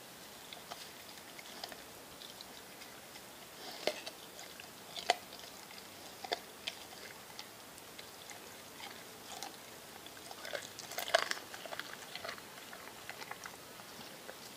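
American Staffordshire terrier chewing and biting on a whole fish: scattered sharp bites with a quick flurry about three-quarters of the way through.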